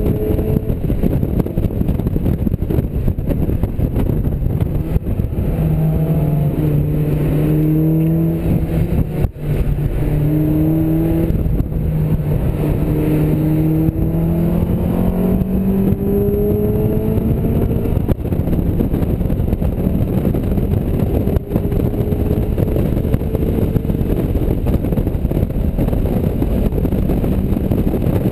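Mazda MX-5's four-cylinder engine pulling hard on track, heard from inside the car over heavy wind and road noise. Its note holds, dips briefly about nine seconds in, then climbs in several rising steps.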